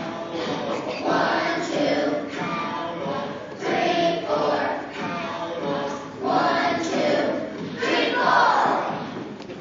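A group of young children singing together in short phrases.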